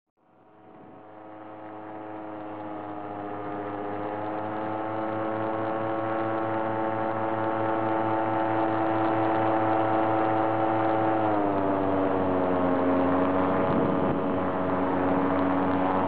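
WalkerJet DX 200 paramotor engine running steadily in flight, fading in at the start. Its pitch drops a little about eleven seconds in.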